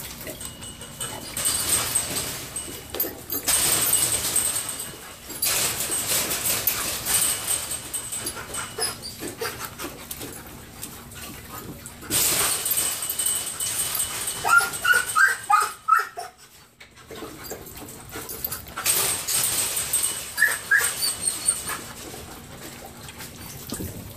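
German Shorthaired Pointer puppies crunching dry kibble and jostling around a shared feeding pan. A few short puppy whimpers come in a cluster around the middle and twice more a little later.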